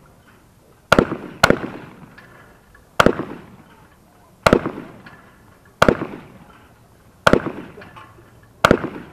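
Shotgun firing seven shots, each a sharp crack with a short echoing tail. The first two come about half a second apart, then one follows roughly every second and a half.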